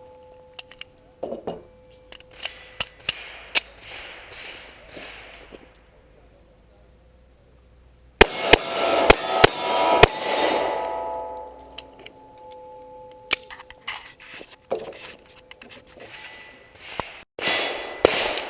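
Pistol shots: a quick string of about six sharp reports within two seconds, about eight seconds in. Fainter, scattered sharp cracks and clangs come before and after.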